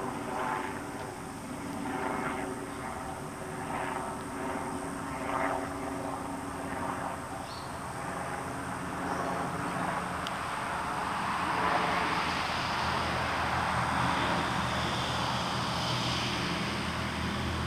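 A distant engine droning steadily, swelling louder with a broad rush in the second half as it passes.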